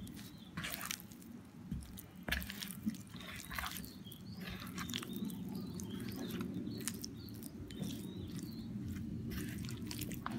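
Wet squelching and sticky clicks of a bare hand kneading raw chicken pieces in a thick spice marinade, irregular throughout, over a faint steady low hum.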